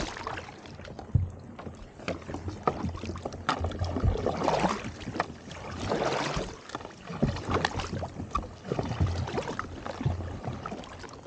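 Kayak paddles splashing through slushy brash ice, with many sharp knocks as ice chunks strike the kayak's hull, and louder swells of water sloshing about four and six seconds in.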